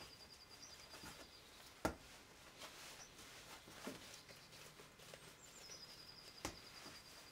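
Faint, near-quiet background with a thin, high bird trill of rapid even notes, heard about halfway through and again near the end, and a few soft knocks from handling.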